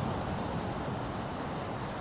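Ocean surf: a steady rushing wash of breaking waves, with no single crash standing out.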